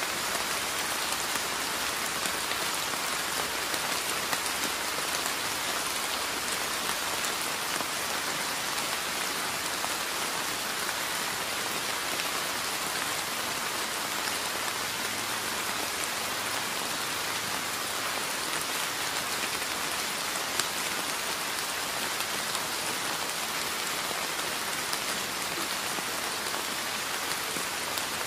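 Steady rain falling: an even hiss of drops with scattered faint ticks and one sharper tick about two-thirds of the way through.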